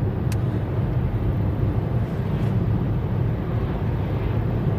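Steady low rumble of a car driving, engine and road noise heard from inside the cabin, with a single sharp click shortly after the start.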